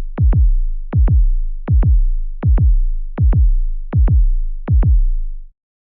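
Suspense heartbeat sound effect: deep electronic double thumps in a lub-dub pattern, about eighty a minute, over a low sustained boom. It stops abruptly about five and a half seconds in.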